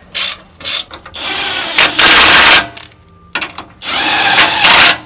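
A handheld power tool driving a socket onto the bracket's bolts. It runs in two spells, each building to a loud burst about two and four and a half seconds in, with a few short clicks before each spell.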